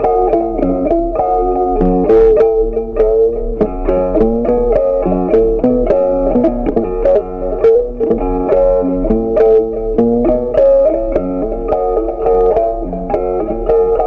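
Background music: a plucked-string, guitar-like melody of quick, clearly picked notes.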